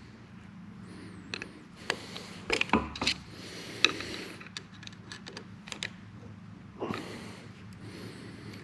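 Irregular metal clicks and knocks of a screwdriver tip working a lock nut round on the gear shaft of a lathe tailstock gearbox, with the gears and screw turning. The nut is being tightened a little further to take up the bearing slack and line up a locking tab. The sharpest knocks come a little under three seconds in and again near four seconds.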